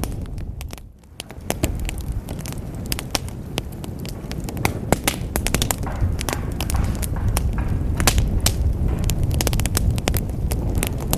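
Wood fire burning in a fireplace: irregular sharp crackles and pops over a steady low rumble of the flames. The sound dips briefly about a second in.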